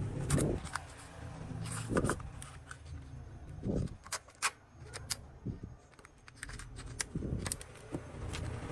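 Handling noise from a phone and a plastic screen-protector card worked in the hands: irregular small clicks and taps, with a few soft knocks spread through.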